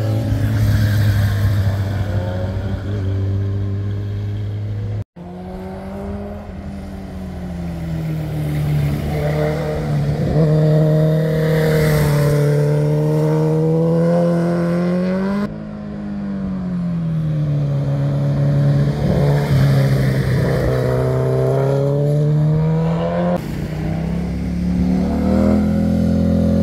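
Motorcycle engines heard one after another as the bikes ride through tight bends, the engine note rising and falling as they rev up and ease off. The sound switches suddenly from one bike to the next three times.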